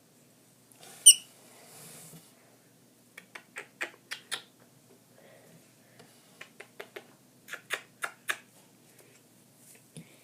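A pet bird gives one short, high chirp about a second in. Two runs of sharp clicks or taps follow, about half a dozen each.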